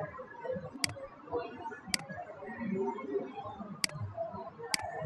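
Computer mouse clicking four separate times, about a second or two apart, as drop-down menu entries are selected. Under the clicks there is a faint, uneven background murmur.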